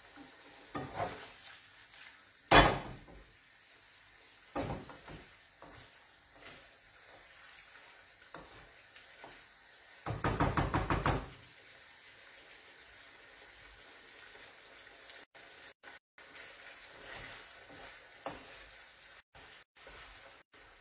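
Wooden spoon knocking and scraping against a non-stick frying pan while pasta is stirred in its sauce. There is one sharp knock about two and a half seconds in, and a quick run of scraping strokes around ten seconds in.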